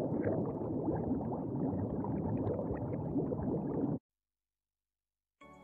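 Bubbling, gurgling water sound effect, a dense fizz of bubbles that cuts off suddenly about four seconds in. After a second and a half of silence, music with held steady tones starts near the end.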